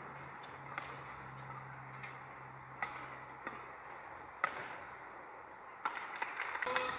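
Badminton rally: racket strikes on the shuttlecock, sharp cracks about a second apart. The loudest is a jumping overhead smash about four and a half seconds in. Under them runs a steady arena murmur, which rises with dense clicks near the end.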